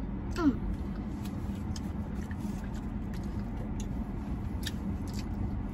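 Steady low hum of a running car heard inside its cabin, with faint scattered mouth clicks from people chewing donuts. A brief vocal sound comes about half a second in.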